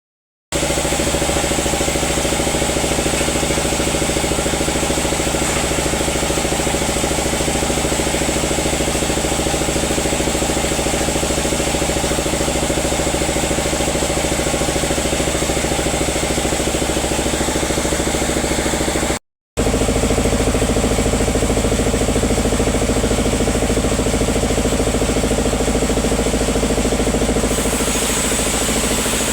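Sawmill machinery running steadily, a continuous engine hum. It cuts out briefly about two-thirds through and comes back with a slightly different tone.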